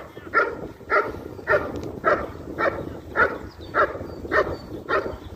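German Shepherd barking in a steady, even rhythm, about two barks a second.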